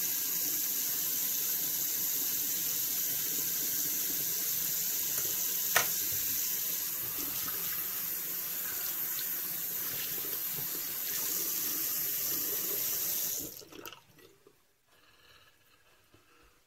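Bathroom tap running steadily into the sink, shut off about three seconds before the end. A single sharp click about six seconds in.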